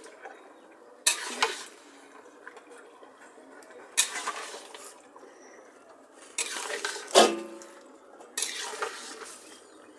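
A spoon scraping and knocking against a cooking pan in several short bouts as marinated chicken is stirred and browned in spiced oil.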